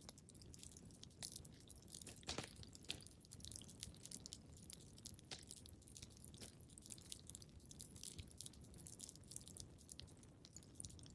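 Wood fire crackling in a fireplace: a steady scatter of small, irregular pops and snaps over a soft low rumble, with a sharper pop about two and a half seconds in.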